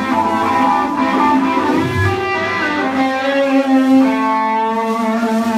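Live amplified rock band playing, led by electric guitar, with long held notes that change pitch every second or two.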